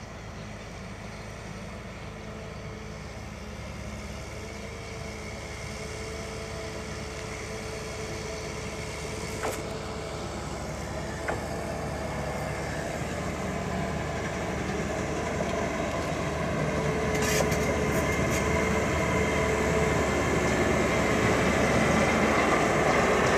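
Diesel engine of a CAT wheeled excavator running steadily and growing louder as the machine comes closer, with a few sharp knocks.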